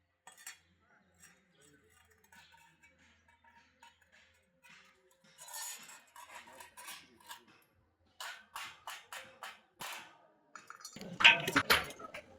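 Metal pieces clinking and tapping: a run of short sharp clinks that grows busier, with a louder clatter about eleven seconds in.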